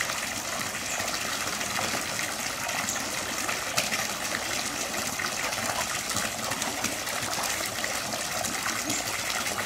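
Steady gushing and splashing of water in a shallow pool as Asian small-clawed otters swim and play in it.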